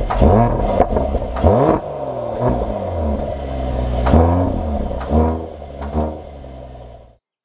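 An engine running with about six quick revs rising and falling in pitch, with a few sharp clicks, cutting off abruptly near the end.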